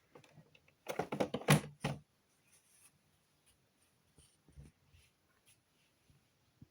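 A quick run of knocks and clatter about a second in, then a few faint clicks.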